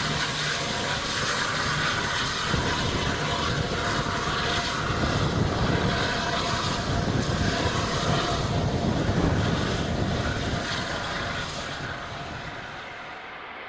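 LNER A2 class Pacific steam locomotive 'Blue Peter' working away under steam, a steady rumble of its exhaust with hiss on top, fading and quieter near the end as it draws off.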